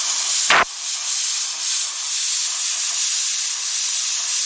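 Vinod stainless-steel pressure cooker letting off steam through its weight valve in a loud, steady hiss: its second whistle, the sign that the two whistles of cooking are done. A brief thump about half a second in.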